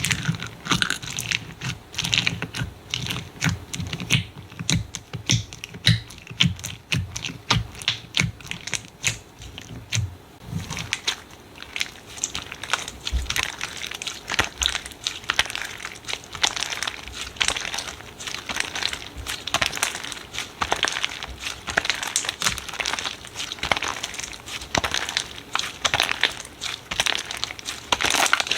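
Slime being squeezed and poked by hand: a dense run of sticky clicks and pops, several a second, with soft low thuds through the first ten seconds or so.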